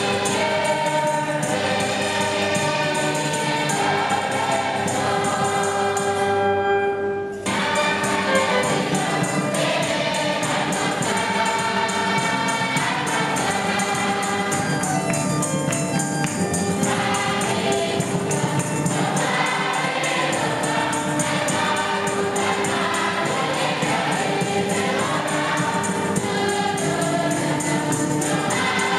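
A choir singing gospel music over a steady percussion beat, with a brief dip in the sound about seven seconds in.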